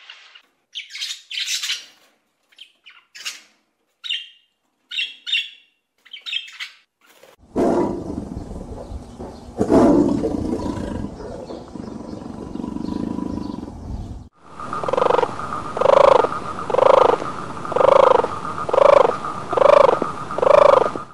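A run of animal calls: short, high chirping calls come and go for the first seven seconds. Then a tiger growls and roars, loudest near the ten-second mark. The last part is a rhythmic series of about seven calls, a little under one a second, over a steady high hum.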